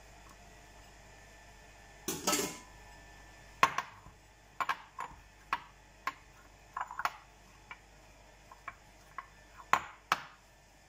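A ceramic bowl clinking and knocking as dough is mixed in it by hand. There is a short scraping rustle about two seconds in, then a run of irregular sharp clinks and knocks.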